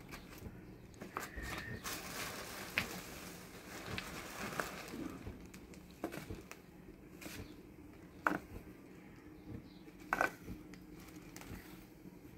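Plastic sheet rustling and crinkling as a dry sand-and-cement mix is turned over on it, with a metal trowel scraping through the mix and a few sharp clicks.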